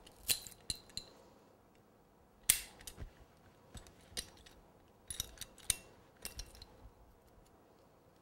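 Hand cutter snipping a wooden skewer to length: a few light clicks, then one sharp snap about two and a half seconds in, and a run of quick clicks and snips a few seconds later.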